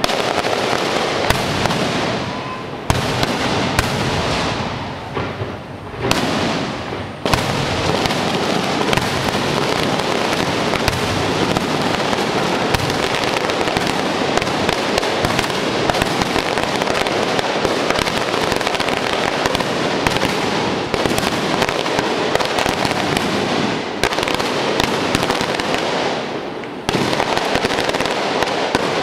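Large aerial fireworks display: a dense, nearly unbroken barrage of bangs and crackling shell bursts, with a few short lulls.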